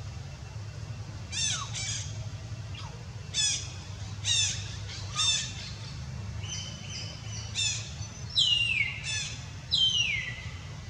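A young macaque giving a series of short, high-pitched squeals, about ten in all, the last two longer and sliding down in pitch.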